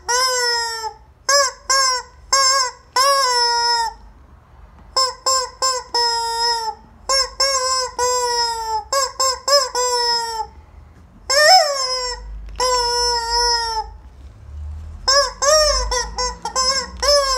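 Rubber squeaky chicken toy squeezed again and again, letting out squawks: some short, some drawn out for most of a second and sagging in pitch at the end, in irregular bunches with short gaps.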